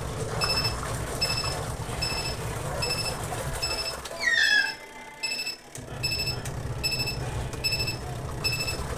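Twin-tub washing machine's wash-timer alarm beeping repeatedly, about one short high beep every 0.8 s, the signal that the wash cycle has counted down to zero and finished. A low hum runs under it, and a brief squeak sounds about four seconds in.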